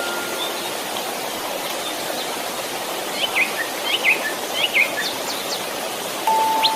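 Continuous white noise, a steady even hiss, with a cluster of short bird chirps from about three to five seconds in. A single held chime note comes in near the end.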